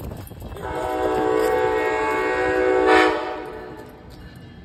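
Amtrak ACS-64 electric locomotive's air horn sounding one long steady chord for about two and a half seconds, ending abruptly about three seconds in and echoing briefly.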